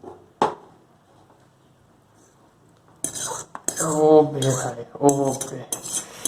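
Metal utensils clattering and scraping against a cooking pot and dishes, starting about three seconds in, as the just-cooked noodles are handled. Before that there is one sharp click.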